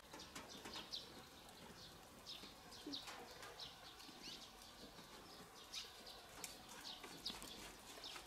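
Faint, scattered chirps of small birds: short notes that drop in pitch, coming irregularly every half second or so over a near-silent background.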